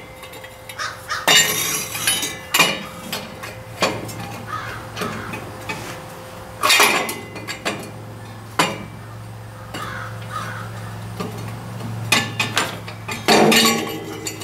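Metal clanks and scrapes of a tractor exhaust pipe and muffler being wrestled into place by hand, in irregular bursts. A low steady hum runs underneath from a few seconds in.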